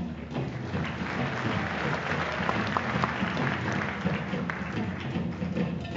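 Audience applauding, building about half a second in and thinning near the end, over background music.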